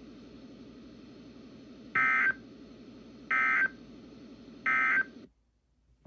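NOAA Weather Radio SAME end-of-message code played through a weather radio's speaker: three short, identical buzzy data bursts about 1.4 seconds apart over a low steady hum, marking the end of the weekly test broadcast. The broadcast audio cuts off suddenly just after the third burst.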